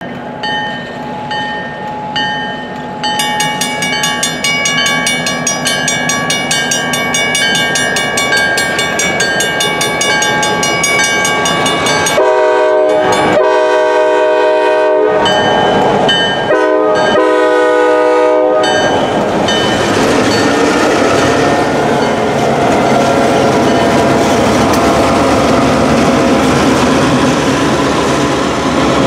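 A mechanical crossing bell starts ringing rapidly about three seconds in as the gates lower. A locomotive air horn then sounds the grade-crossing signal in four blasts, the third one short. After that the train rolls across the crossing, passenger-car wheels clicking over the rail joints.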